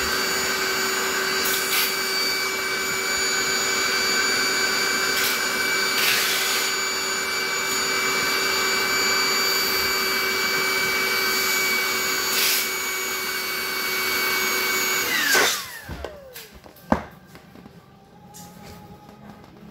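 Handheld electric air pump running steadily with a whining tone, blowing air into an inflatable vinyl paddling pool; about fifteen seconds in it is switched off and its whine falls as the motor spins down. A single sharp click follows shortly after.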